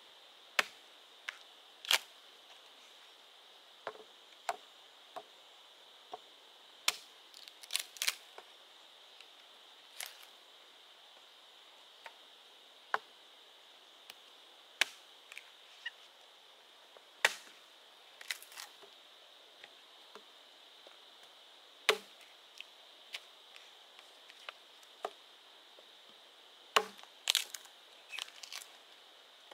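Irregular chopping strikes of a blade on bamboo, one every second or two with a few quick clusters of blows. A steady high-pitched hum runs beneath.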